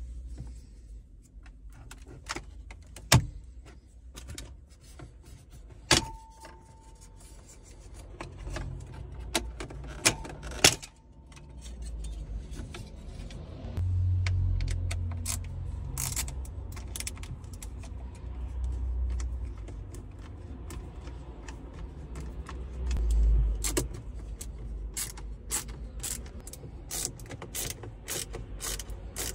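Plastic dashboard trim and clips on a Skoda Superb II centre console clicking and snapping while the trim below the radio is pried off with a screwdriver and the head unit is worked loose. A few loud single snaps come in the first ten seconds, and a quick run of many small clicks comes near the end, over low rumbles from handling.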